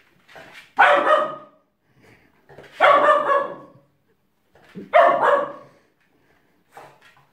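A 16-week-old cocker spaniel puppy barking: three loud barks about two seconds apart, with a few fainter ones between.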